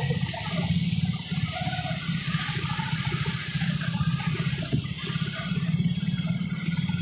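Wind rushing and buffeting over the phone's microphone on a moving motorcycle, a steady fluttering low rumble: the background noise of riding at speed.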